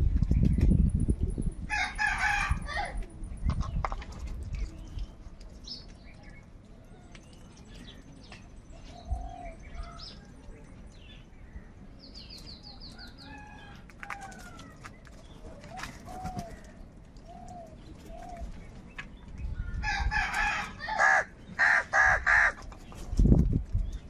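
House crows cawing harshly: one call about two seconds in, then several caws in quick succession near the end. In between it is quieter, with faint chirps and low thumps that fit wing flaps.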